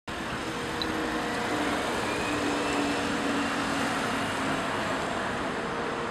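Roadside traffic: steady noise of passing cars, with a faint engine hum.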